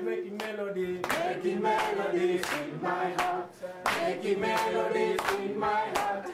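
A group of voices singing a song together, with hand claps keeping a steady beat, about one and a half claps a second.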